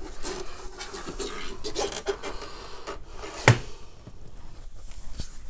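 Rustling and scraping as an Xbox console and its cables are handled and the console is stood back upright, with one sharp knock about three and a half seconds in.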